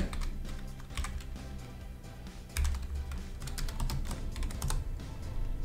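Computer keyboard typing: irregular runs of keystroke clicks, over soft background music.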